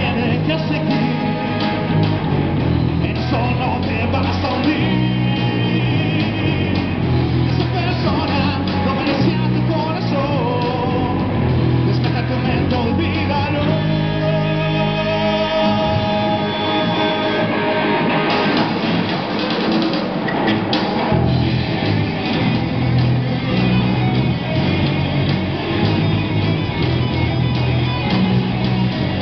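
Live rock band playing: electric guitars through amplifiers, bass guitar and drum kit, with a long, wavering held note around the middle.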